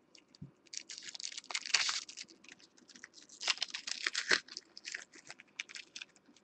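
Foil wrapper of a 2013 Panini Select baseball card pack being torn open and peeled back by hand, crinkling and crackling in two bouts, the first about a second in and the second from about halfway.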